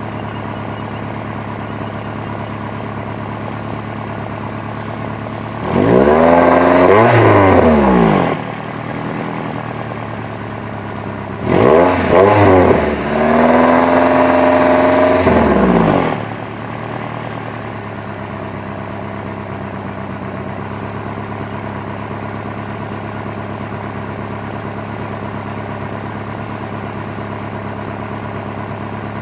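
2001 Honda Prelude's four-cylinder engine idling, revved twice: a short blip up and back down about six seconds in, then a longer rev from about twelve seconds that holds for a few seconds before dropping back to idle. The engine is logging a cylinder 2 misfire and random misfires on all cylinders, which the owner suspects may come from worn piston rings.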